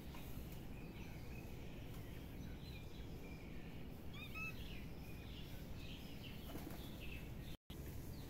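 Outdoor background noise, a steady low rumble, with faint bird chirps and calls and a short cluster of quick chirps about four seconds in. The sound cuts out for a moment near the end.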